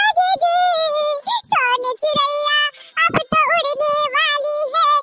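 A high-pitched cartoon voice drawing out long, wavering notes in a singing or wailing line, with short breaks between phrases.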